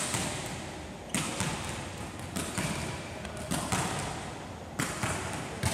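A volleyball being hit and bounced on a wooden court: several sharp thuds, about a second apart, each echoing around a large hall.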